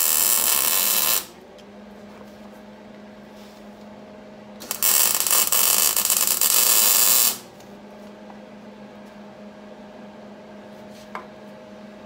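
Arc welder tack-welding a catalytic converter onto an exhaust pipe: two bursts of steady arc hiss, the first stopping about a second in, the second lasting about two and a half seconds from around five seconds in. A low steady hum sits underneath between the bursts.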